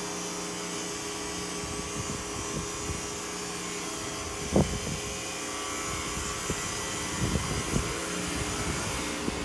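Outdoor heat pump unit running steadily, its fan and compressor making a constant hum. A few short low thumps, the loudest about four and a half seconds in and several more near the end.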